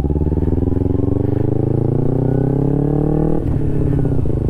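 Kawasaki Ninja 250R's parallel-twin engine, fitted with a Leo Vince aftermarket exhaust, accelerating under way: the revs climb steadily, drop suddenly at an upshift about three and a half seconds in, then run on evenly in the next gear.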